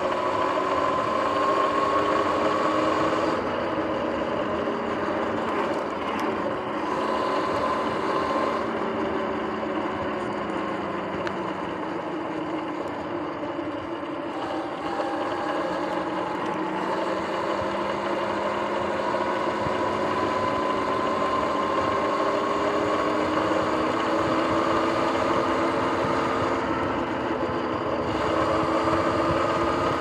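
Sur-Ron electric dirt bike under way, its motor and chain drive whining in several tones that rise and fall together with speed, over a steady grinding drivetrain noise. The owner puts the grinding and clicking down to front hub and jackshaft bearings going bad.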